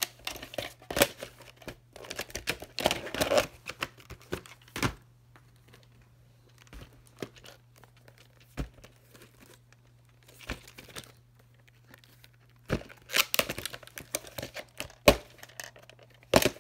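Plastic clamshell VHS cases and cassettes being handled: bursts of rustling and scraping with many sharp plastic clicks, busiest at the start and again near the end, sparse in the middle. A faint steady hum runs underneath.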